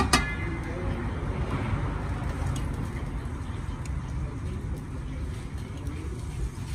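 Metal tongs clink once against a copper serving plate right at the start, ringing briefly, over a steady low rumble of background noise.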